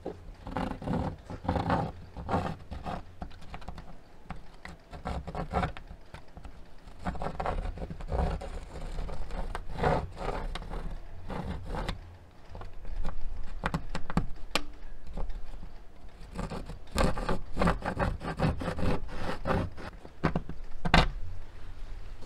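Pencil scratching across plywood siding in repeated short strokes, drawn round on a wire compass pivoting on a screw to scribe a 9 1/4 inch circle for a vent hole. A steady low rumble runs underneath.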